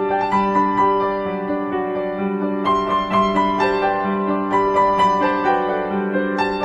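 Background piano music: a slow melody of held notes over a steady lower note.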